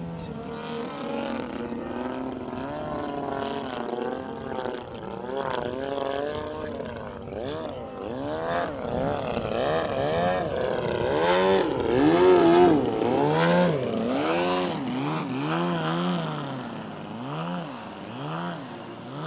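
Large radio-controlled aerobatic plane's engine and propeller, the pitch rising and falling again and again through the manoeuvres. In the second half the swings come about once a second. It is loudest about two-thirds of the way through.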